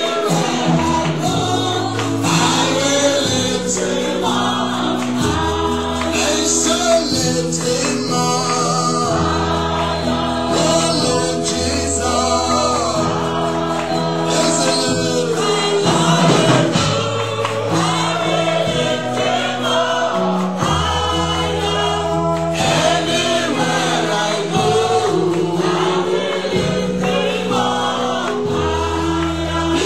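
A choir singing a gospel worship song over instrumental accompaniment, with low chord notes held and changing every second or two.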